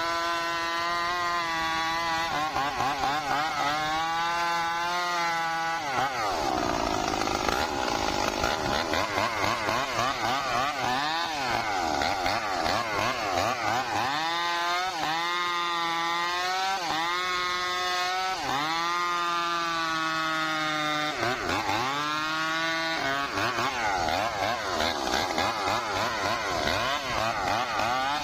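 Stihl MS 382 two-stroke chainsaw cutting rain tree (trembesi) wood at full throttle. Its engine pitch sags as the chain bites into the wood and climbs back when the load eases, again and again.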